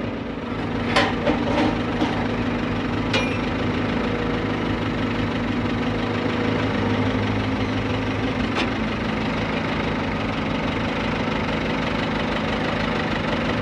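Heavy-equipment diesel engine running steadily, with several short sharp knocks in the first three seconds and one more about eight and a half seconds in.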